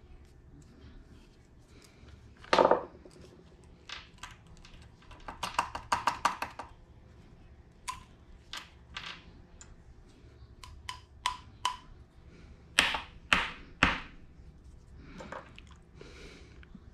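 Small metal hardware, blind hole spotters, being handled and set down on a plywood workbench: scattered taps and light metallic clinks, a quick rattle of clicks a little past the middle, and three sharper knocks near the end.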